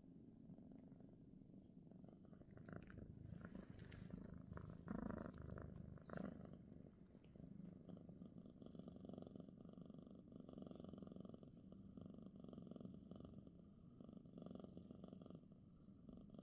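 Domestic cat purring steadily and quietly, with a fuller stretch a few seconds in. The purr swells and eases with each breath about every second or so.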